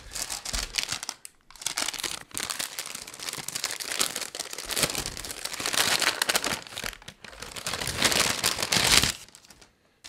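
Brown paper packaging crinkling and rustling as it is pulled and torn open by hand, in a busy, uneven run that stops about nine seconds in.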